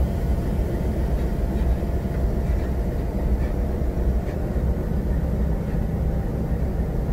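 Cab noise of a WDG-3A diesel locomotive under way: its 16-cylinder ALCO diesel engine drones steadily and low, mixed with the running of the wheels on the rails and a few faint ticks.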